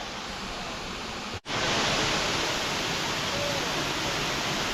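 Waterfall: a steady, even rush of falling water. The sound cuts out for an instant about a second and a half in and comes back slightly louder.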